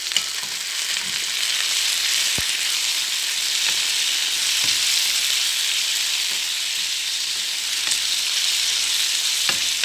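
Oysters frying with onion, tomato and green pepper in a metal pan, a steady sizzle. A wooden spatula stirs the pan, knocking against it a few times.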